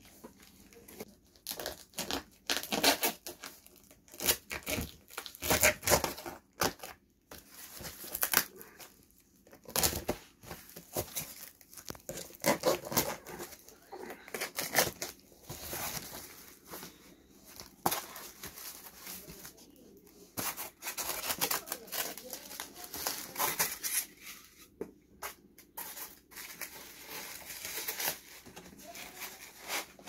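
Cardboard shipping box being opened by hand: packing tape and cardboard tearing, flaps pulled back, and plastic wrapping crinkling, in irregular bursts of ripping and rustling.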